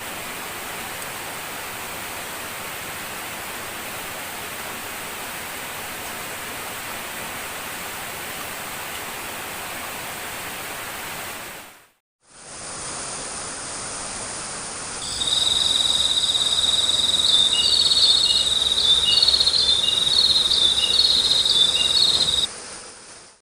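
Steady rush of a waterfall. After a brief fade to silence about halfway, the water noise returns, and a few seconds later a loud, high, steady insect drone joins it, with short chirps repeating over it until it cuts off near the end.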